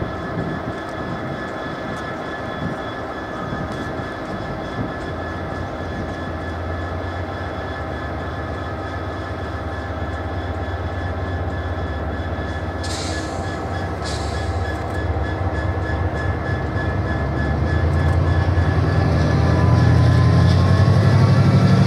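Class 68 diesel-electric locomotive approaching with a freight train, its engine running steadily and growing louder, ending in a deep throb as it draws close. Two brief hisses sound about 13 seconds in.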